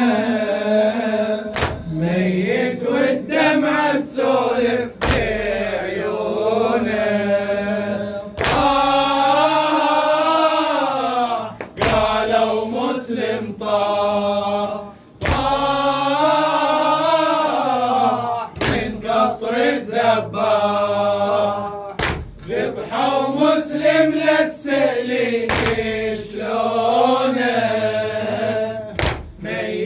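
Male voices chanting a Shia latmiyya lament in a slow, wavering melody. A heavy beat lands roughly every three and a half seconds, with lighter strokes between.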